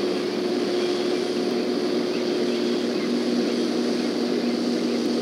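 Massey Ferguson combine harvester running steadily as it harvests corn. It is a constant engine and machinery drone with a couple of steady hums in it.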